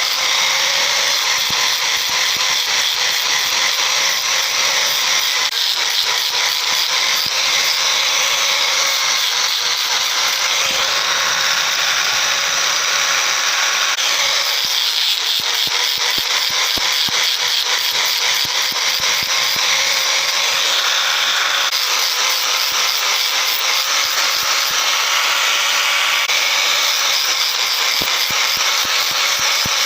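Power tool running steadily on metal: a dense, loud hiss with fine rapid ticking, its tone shifting slightly a few times.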